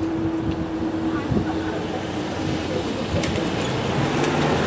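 Road traffic moving off across a level crossing as the barriers lift: car and van engines and tyres, getting louder near the end as a car passes close. A steady hum stops about a second in.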